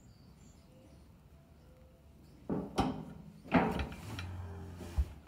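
Metal clanks and rattles from a steel cattle squeeze chute, starting about halfway through, with the loudest bang a second later and a sharp knock near the end.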